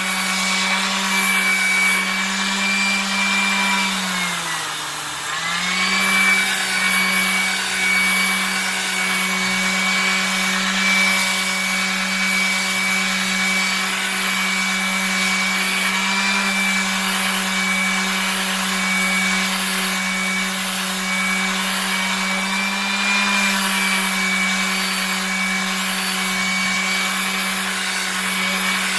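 A corded Drillmaster electric palm sheet sander running with a steady hum, its pad rubbing sandpaper over a stainless steel tumbler to scuff off the coating. About four seconds in the motor's pitch drops briefly and then comes back up.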